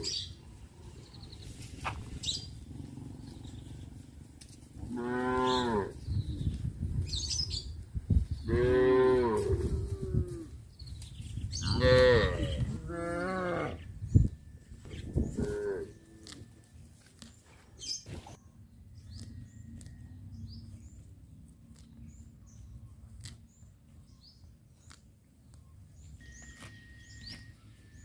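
Cattle mooing: about five long calls in the first half, then quieter, with faint bird chirps.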